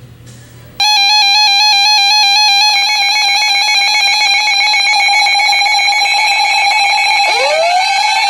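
Weather radios sounding their electronic alert alarm for a new warning. Several stacked tones come in about a second in, warbling rapidly, then turn into a steady tone. Near the end another tone sweeps up in pitch and holds.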